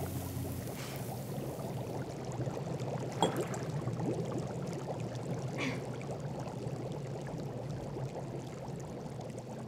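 Potion bubbling and fizzing in a cauldron, a steady low hum beneath it.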